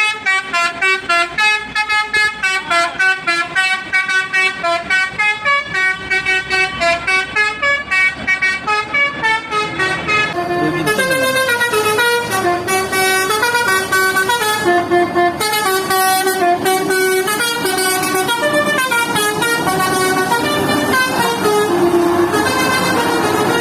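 Bus telolet horn, the multi-tone musical horn of an Indonesian bus, playing a tune of quickly changing notes. In the first half it sounds in short pulses, about three a second; from about halfway it holds longer notes, with a noisy rush joining in beneath.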